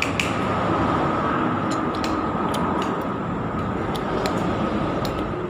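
Steady background rumble with a faint high hum, dotted with small sharp clicks.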